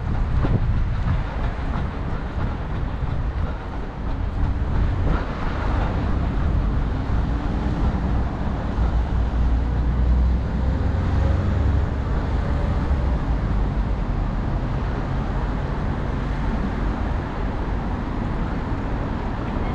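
Steady, deep noise of busy city road traffic, with cars, vans and buses passing.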